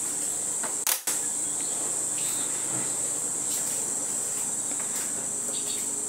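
Steady high-pitched drone of an insect chorus from outside, with one short sharp click about a second in.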